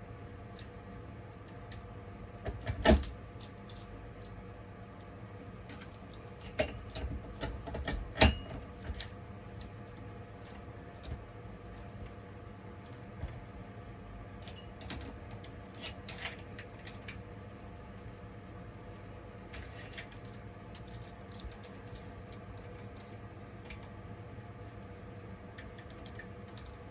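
Scattered metallic clicks, clinks and knocks of chainsaw parts being handled during assembly, with two louder knocks about three and eight seconds in, over a steady low hum.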